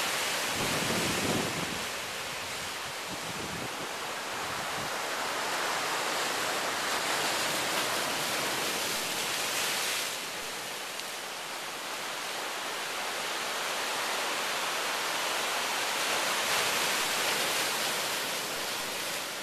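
Ocean surf washing and breaking against lava rocks, a steady rush that swells and eases, with a heavier surge about a second in.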